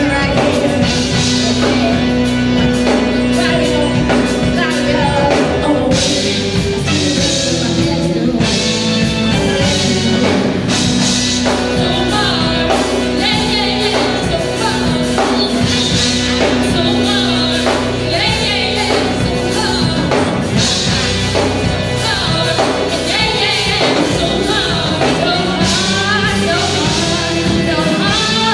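Live music with singing: a band with a steady beat and vocals, in a gospel-tinged style.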